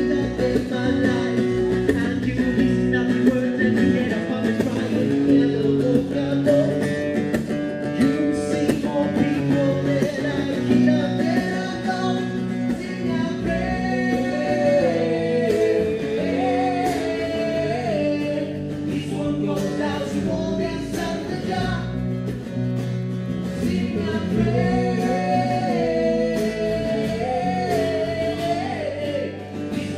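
Live band playing rock music: a man sings into a microphone over guitar and bass guitar, with drums keeping time.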